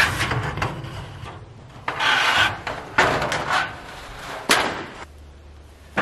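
Corrugated metal roofing sheet scraping and sliding over a flatbed trailer as it is pushed aboard, in several separate scrapes with a couple of sharp knocks.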